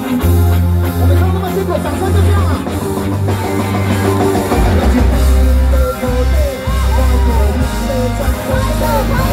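Live rock band playing: electric guitars, a heavy bass line and drum kit, with a man and a woman singing, the vocals standing out more from about halfway through.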